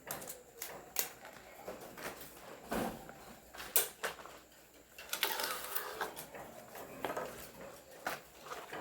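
Scattered light clicks and knocks of things being handled, with a longer rustling stretch about five seconds in.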